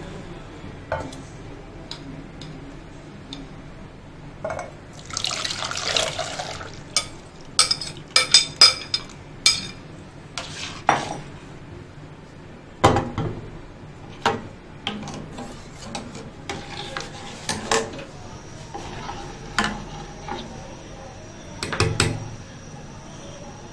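Tomato purée poured from a glass bowl into a steel saucepan, followed by a spoon scraping and clinking against the bowl and pan. There are sharp knocks of steel on metal, the loudest a few seconds in, near the middle, and near the end, as the pan is handled and set on a gas burner.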